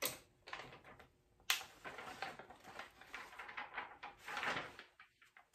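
Paper rustling and crinkling in irregular bursts as the sheets laid over the glass on the heat press are handled and peeled back, with a sharp tap about a second and a half in.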